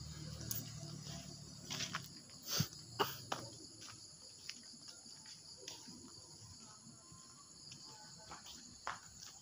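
Night chorus of crickets, a steady high-pitched chirring, with scattered sharp clicks and knocks, the loudest about three seconds in.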